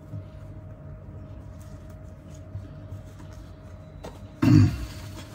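Faint rustling and handling as a small padded lens pouch is moved about on a table, over a steady low room hum. There is one short, louder thump about four and a half seconds in.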